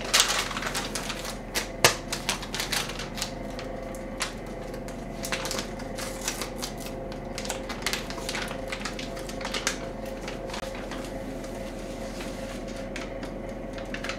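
Scattered clicks and taps of kitchen utensils and packaging being handled during food prep, densest in the first couple of seconds and again near the end. Underneath is a steady hum from the running air fryer.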